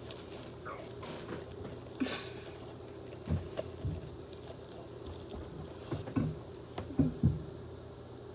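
Handling noise from hands working a plastic cup at a table: scattered soft, irregular knocks with a brief rustle about two seconds in.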